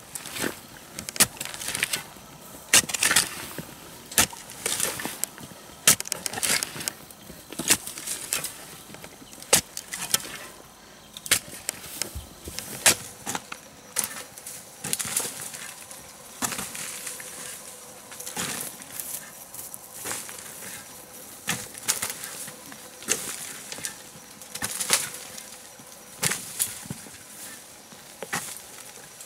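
A hand tool digging into soil, striking and scraping in a steady working rhythm of roughly one stroke a second.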